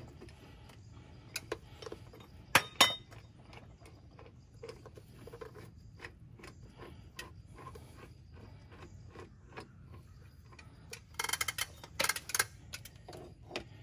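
Ratchet handle clicking as it is worked on a 78:1 torque multiplier set on a bus wheel's lug nut, with the multiplier's gearing ticking. A few sharp clicks come in the first three seconds, light ticks follow at about two to three a second, and a quicker, louder run of clicks comes near the end.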